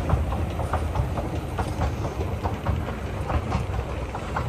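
Small wheels of a hand-pulled luggage trolley rolling and rattling, clicking about three times a second over a low rumble.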